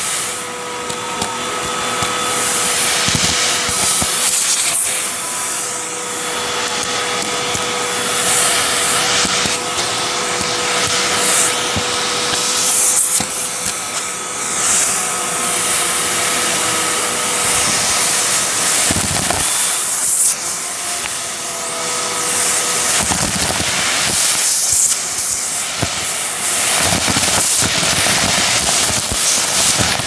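Hoover vacuum cleaner running with its hose and crevice tool sucking up chunks of debris from a rug. A steady motor whine sits under a loud rushing hiss of air that swells and dips as the nozzle works the pile, with scattered crackles and rattles as pieces go up the hose.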